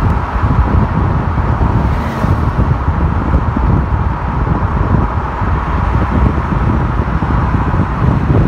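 Car driving along a road: steady road and tyre noise.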